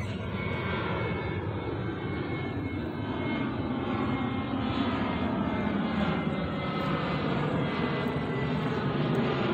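Jet airliner climbing out overhead just after takeoff: a steady rushing engine roar with a faint whine that slowly falls in pitch, growing louder toward the end.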